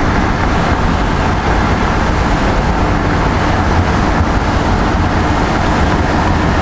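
1968 Chevrolet Camaro Z28's 302 cubic-inch small-block V8 running steadily while cruising, heard from inside the cabin together with tyre and road noise.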